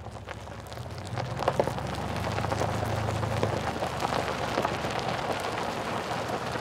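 Rain falling on a hard surface, a constant hiss dotted with many small drop ticks, over a low steady hum.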